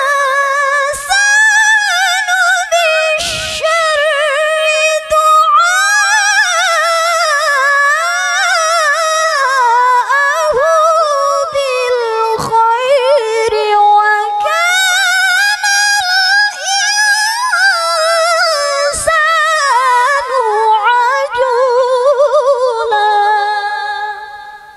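A woman reciting the Qur'an in the melodic tilawah style, into a microphone, with long held notes full of wavering ornaments. The phrase ends and the voice dies away near the end.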